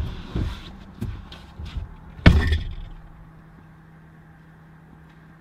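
A few knocks, then a vehicle door slams shut a little over two seconds in. A quiet, steady low hum follows.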